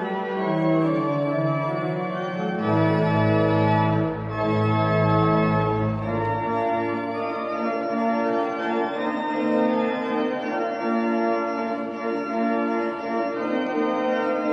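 Organ playing the postlude, sustained full chords. A deep pedal bass joins under them a little under three seconds in and drops out about six and a half seconds in.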